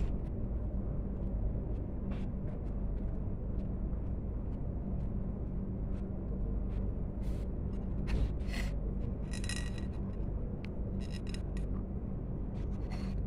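Eating by hand from a ceramic plate: small scattered clicks and a few light clinks as fingers pick up rice and fish, with quiet chewing, over a steady low room hum.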